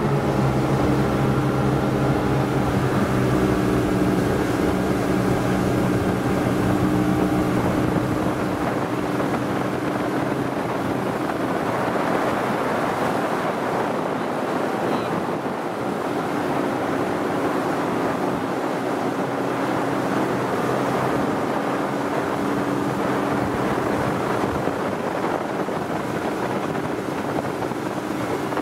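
Three Evinrude 300 two-stroke V6 outboard motors running hard under the heavy load of towing a long line of water skiers, with rushing wake water and wind buffeting the microphone. The engine tone is clearest for the first several seconds, then the water and wind noise take over.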